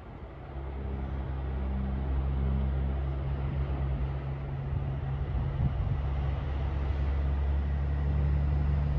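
Diesel engine of an approaching coal truck, a semi tractor pulling a dump trailer, running with a steady low drone that grows louder as it nears.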